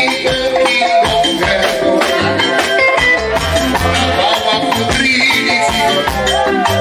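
Live gospel band playing an upbeat instrumental passage: a lead melody over bass and drums, with a shaker keeping a steady rhythm.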